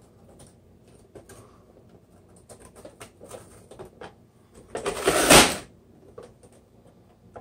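Green pepper pieces being set onto the blade grid of a Sharper Image manual vegetable chopper with small taps and rustles, then, about five seconds in, the lid is pressed down and forces the peppers through the blades in one loud press lasting about a second.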